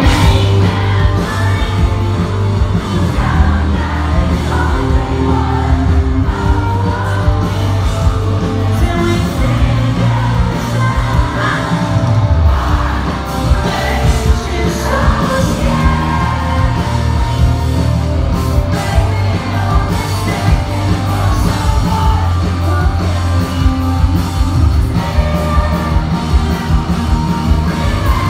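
Live post-hardcore band playing loud through the venue's sound system, with singing and yelling over heavy bass and drums, heard from within the crowd.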